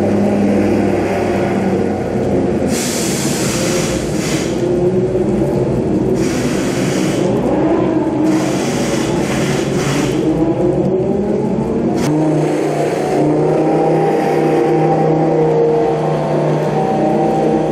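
GT race car engines running loudly at low pit-lane speed, their notes rising and falling slightly; the engine note changes abruptly about twelve seconds in. Bursts of hiss from tyres spraying water off the wet tarmac.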